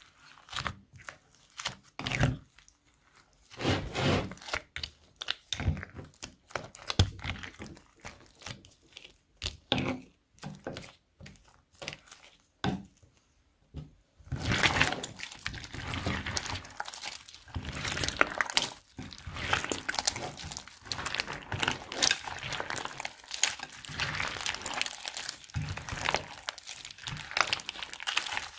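Slime-making sounds of slime and plastic bags being handled: separate squishes and crinkles for the first half, then from about halfway dense, continuous crinkling and crunching.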